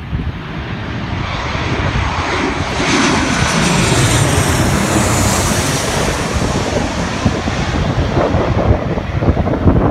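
Twin-engine jet airliner flying low overhead on landing approach. Its engine noise swells over the first few seconds and peaks as it passes over, then eases slightly as it moves away.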